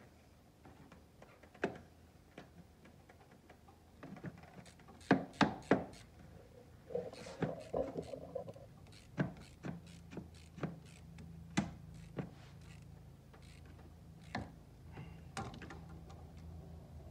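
Hand tools and metal worm-drive hose clamps clicking and knocking as the clamps are fitted and tightened with a screwdriver on heater hoses in an engine bay. The clicks come at irregular intervals, with three sharp ones in quick succession about five seconds in. A low steady hum joins from about ten seconds in.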